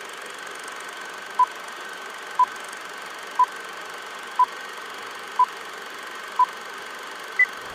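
Film-leader countdown sound effect: short beeps about once a second over a steady film-projector whir and hiss. Six beeps at one pitch are followed near the end by a seventh, higher beep.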